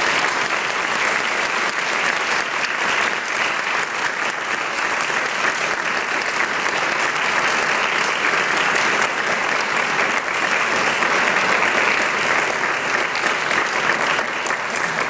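Sustained applause: a hall full of people clapping steadily, with the handbell ringers on stage clapping along.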